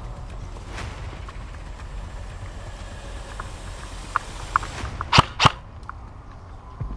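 Two sharp airsoft gun shots about a third of a second apart, a little after five seconds in, with a few lighter clicks just before them. A steady low rumble of wind and handling noise runs underneath.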